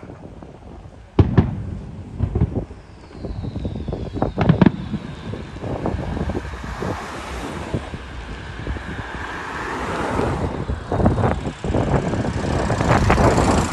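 Fireworks: a sharp bang about a second in and more bangs a few seconds later, then a dense run of crackling pops from low gold crackle effects, building louder toward the end.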